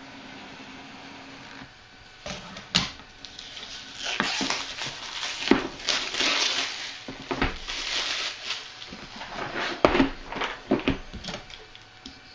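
Cardboard boxes being handled: a white outer box slid and pulled off a puzzle box, with irregular rustling and scraping and a few sharp knocks against a wooden table, about three in all.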